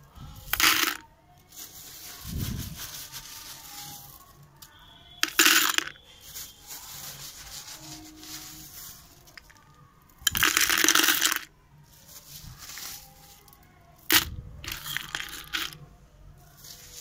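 Handfuls of stone chips poured into a plastic tub, clattering onto potsherds and onto each other in several separate bursts, the longest about ten seconds in, as a layer of chips is built up at the bottom of the pot.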